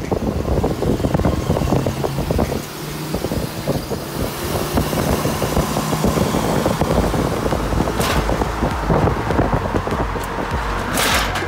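Vehicle running down the road: a steady engine drone and road rumble with rattling, and two short rushes of hiss in the second half.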